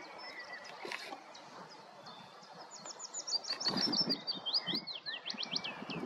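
Willow warbler singing: one phrase of quick high notes that drift downward in pitch, starting about three seconds in and lasting nearly three seconds. A few softer bird notes come before it, and there are some low knocks underneath.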